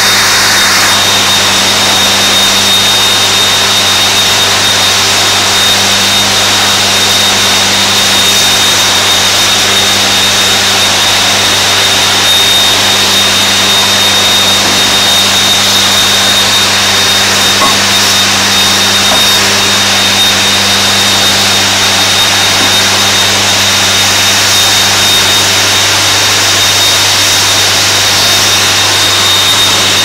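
Loud, steady industrial roar of a smelting furnace in operation while molten metal is tapped from it, with a constant low hum and a thin high whine running under it.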